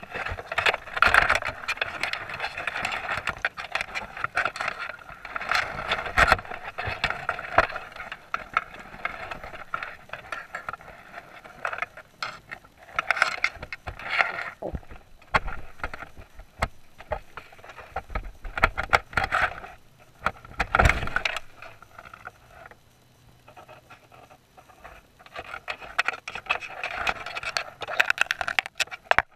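Dense, irregular underwater clicking and scraping as blue swimmer crabs pick at the bait and clamber on the wire mesh of a crab net, heard through the camera's waterproof housing. A louder knock comes about two-thirds of the way in, followed by a quieter spell.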